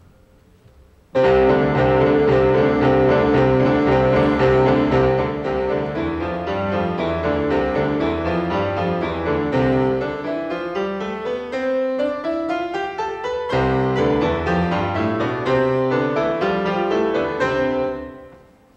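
Grand piano playing a fast passage of repeated chords and runs that climb and fall, starting about a second in and dying away near the end.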